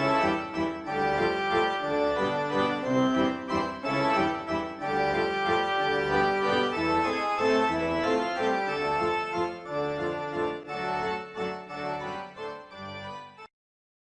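Organ-like keyboard music playing a melody over chords, stopping abruptly near the end.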